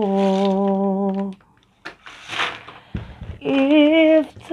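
A man singing an Arabic devotional song holds one long note, then stops. In the pause comes a brief crinkle of a foil snack packet, and the singing starts again near the end.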